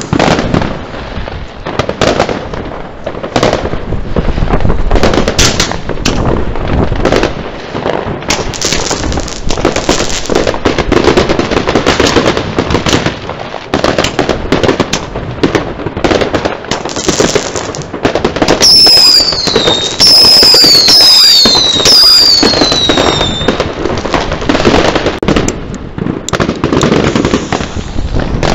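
Dense fireworks: an unbroken run of bangs and crackling from firecrackers and shells, with a few whistling fireworks falling in pitch about two-thirds of the way through.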